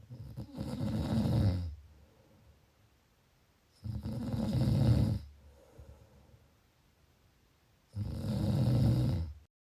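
A person snoring: three snores about four seconds apart, each lasting about a second and a half. The sound cuts off abruptly near the end.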